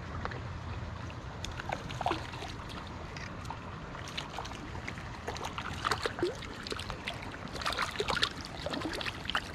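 River water running steadily, with short close splashes and drips on top, thickest in the second half.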